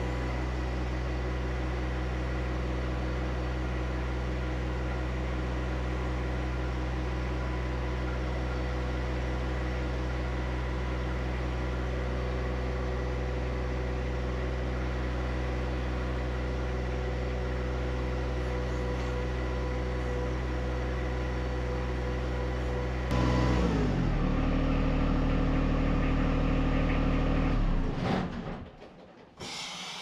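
John Deere 1025R compact tractor's three-cylinder diesel engine running steadily. About three-quarters of the way through it gets louder and changes pitch, then winds down and stops near the end.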